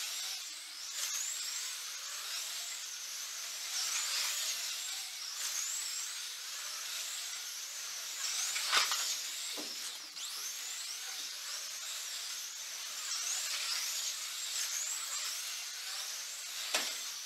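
1/24-scale slot cars' small electric motors whining at a high pitch, rising and falling in repeated sweeps as the cars speed up and slow through the turns. One sharp knock comes about nine seconds in.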